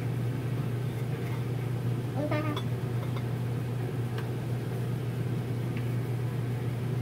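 A toddler's short, rising squeal about two seconds in, over a steady low hum, with a couple of faint clicks of a knife and fork on a plate.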